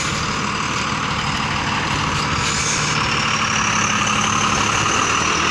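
Heavy truck's diesel engine idling steadily, with a faint high whine over it in the second half.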